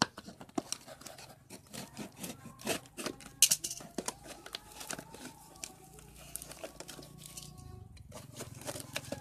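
Cardboard parcel being cut open with a utility-knife blade and torn apart by hand, with irregular scraping, tearing and crinkling sounds.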